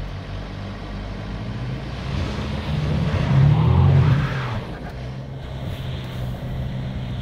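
Jeep Compass Trailhawk engine pulling under throttle while the SUV is stuck on a log ledge and its traction control tries to find grip. It swells louder with a slight rise in pitch about two to four seconds in, then eases back to a steady note.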